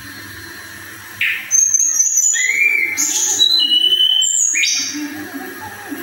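Caged tledekan songbird singing a run of clear whistled notes that jump between pitches, with quick sweeping phrases, starting about a second in. It is a bird in full song ('gacor').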